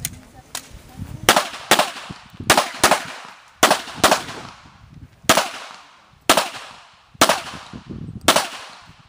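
Pistol shots fired in a string: about ten sharp reports, three quick pairs in the first four seconds, then single shots about a second apart.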